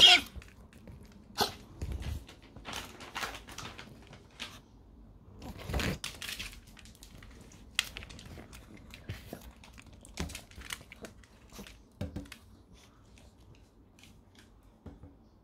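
Dogs moving about right at the phone, making irregular clicks, knocks and rustles. A sharp click comes at the very start and a longer rustle about six seconds in, and it grows faint near the end.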